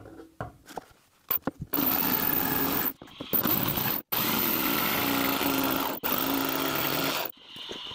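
Electric jigsaw cutting the curved course of a riverbed out of a wooden baseboard, running in several stretches with brief breaks about 3 and 4 seconds in, and stopping about 7 seconds in.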